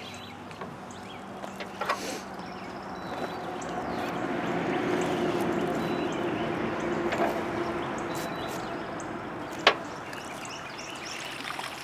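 A boat motor humming on the water, swelling over several seconds in the middle and easing off again, with a few sharp clicks.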